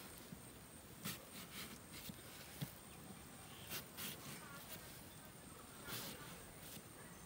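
Kitchen knife cutting into a whole watermelon's rind: several short, faint, crisp strokes at irregular intervals as the blade pierces and scores the skin.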